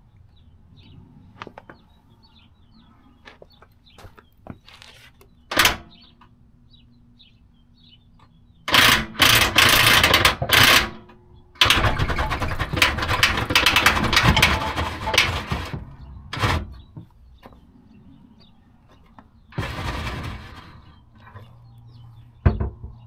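A power drill set to slow driving the spare-tyre winch, lowering the spare wheel on its cable. It runs in three bursts of a few seconds each, the longest about four seconds. Between bursts there is a low hum and scattered clicks, with a single knock about five seconds in.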